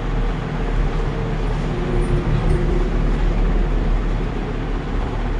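Steady background noise: a low hum and a hiss with no distinct event.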